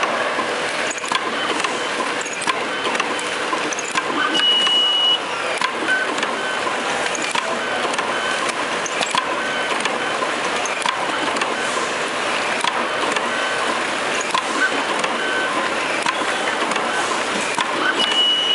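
S12T-L automatic screw-fastening machine running: a steady mechanical hiss and clatter with scattered clicks. A high beep lasting about a second sounds about four seconds in and again near the end.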